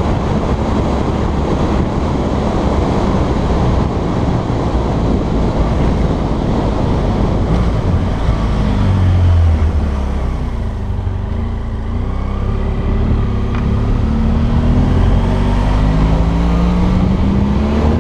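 Motorcycle riding uphill with heavy wind noise on the microphone. About halfway the engine note drops as the bike slows for a hairpin bend, then rises steadily as it accelerates out.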